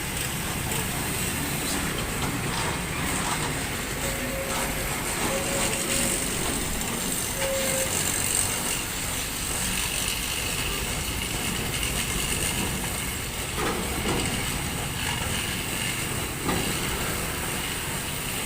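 Steady road traffic noise of heavy vehicles going past, with three short faint tones between about four and eight seconds in.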